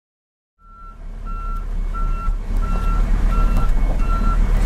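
Truck reversing alarm beeping steadily, about one and a half beeps a second, over a diesel engine running, heard from inside the truck's cab. The sound fades in just under a second in.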